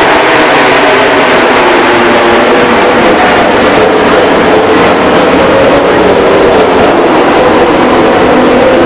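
Ducati Desmosedici GP21 MotoGP bike's V4 racing engine running loudly, its pitch rising and falling slightly as the bike leaves the pit box.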